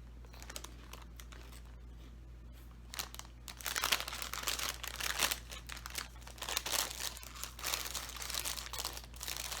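Crinkling of a plastic snack bag of peanut puffs being handled, starting about three seconds in and going on in a dense run of crackles.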